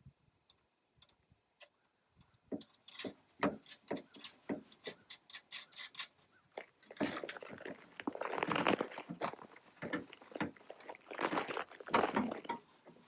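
Small metal hardware and hand tools clicking and clinking as they are handled, sparse at first and then a steady run of clicks, with two longer spells of rattling and scraping near the middle and toward the end.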